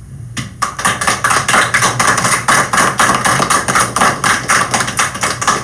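Audience applauding: a dense patter of many hands clapping that starts about half a second in and stops just before the end.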